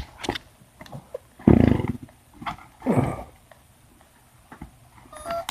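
A dog vocalizing, with two or three short falling yelps or barks, the loudest about a second and a half in. Near the end, the brushless motor's speed controller starts its stepped electronic start-up beeps as the battery is connected.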